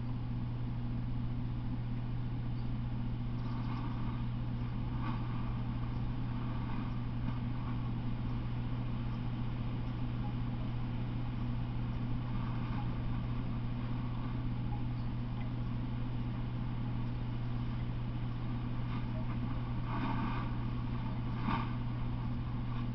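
Steady low electrical hum with hiss, the self-noise of a trail camera's recording, with a few faint short sounds, two of them near the end.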